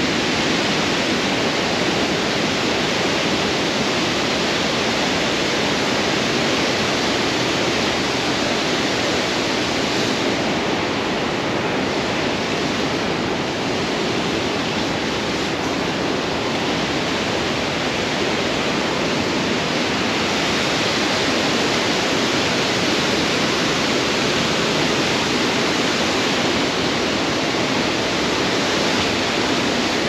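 Waterfall: a loud, steady rush of falling water that holds evenly throughout.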